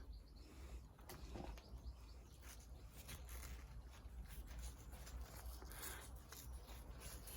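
Faint rustling and small clicks of plant leaves and string being handled as a stem is wound around a support string, over a low steady rumble.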